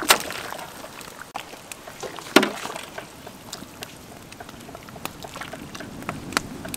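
Large aluminium pot of soup boiling and stirred with a metal ladle: a low steady bubbling with scattered faint clicks, and the ladle knocking against the pot twice, once at the start and more loudly about two seconds in.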